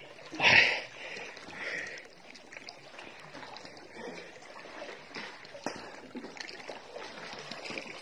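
Sea water splashing and sloshing around a person wading chest-deep, with a louder splash about half a second in and fainter lapping after it.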